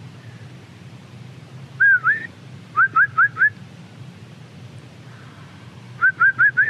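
A person whistling loudly to get the attention of a man walking by. It starts with one swooping two-part whistle, then four quick rising whistles, and four more near the end.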